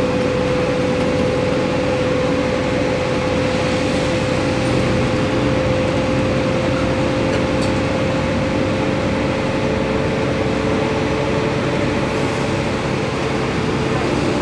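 Cabin noise inside a moving bus: a steady engine hum over tyre and road noise on a wet road, the hum creeping slowly up in pitch.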